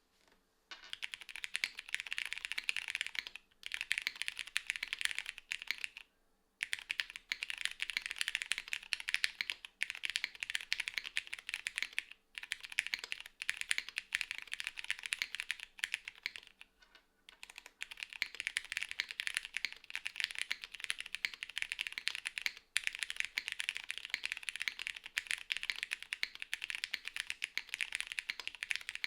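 Fast continuous typing on a plateless, gasket-mounted, unfoamed mechanical keyboard with Cherry MX Petal switches and GMK Shoko keycaps: a dense stream of keystroke clacks with short pauses a few times.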